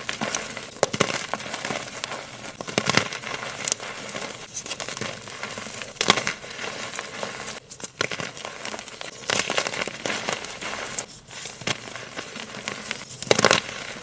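Gritty crunching and crackling of concrete being mixed by hand, with louder crunches at irregular intervals.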